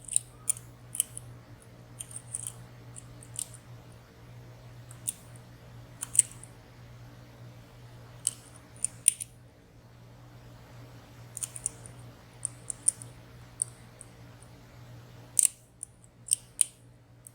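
Lock picks working inside a high-security slider-and-pin padlock: irregular small metallic clicks and ticks as the sliders and pins are probed and set, over a faint steady hum.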